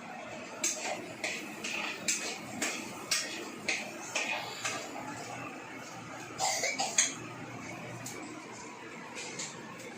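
Dishes and utensils clinking and clattering in a kitchen: a run of irregular sharp knocks and clinks, loudest about seven seconds in, then only a steady background hiss.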